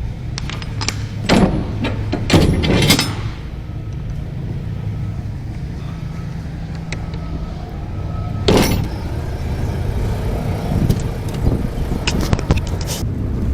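Volvo semi truck's diesel engine running low and steady, with a few brief, loud noise bursts on top: two close together in the first three seconds and one about two-thirds of the way through.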